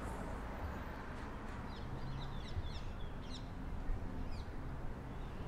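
Outdoor ambience: a steady low background rumble, with a few short, high bird chirps in the middle.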